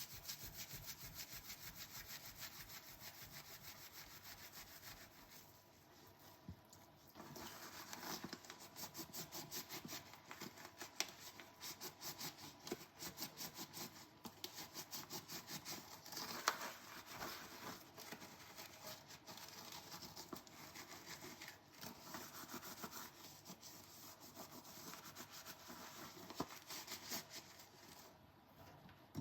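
Dishes being scrubbed by hand at the sink: quick, even back-and-forth rubbing strokes, with a short lull about six seconds in before the scrubbing resumes.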